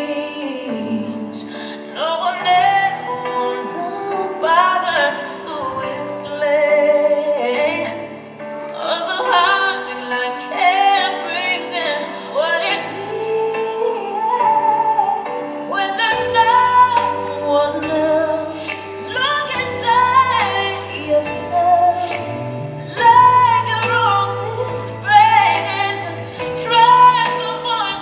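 A recorded ballad: a woman singing with vibrato over held accompaniment, with a low bass line coming in about halfway through.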